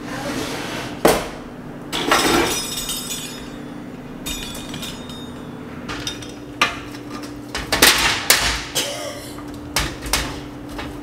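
A metal baking sheet clanks twice in the first few seconds as it is handled. Then a pizza cutter rolls through a pizza on the foil-lined sheet pan, with a run of sharp clicks and scrapes as the wheel strikes the pan.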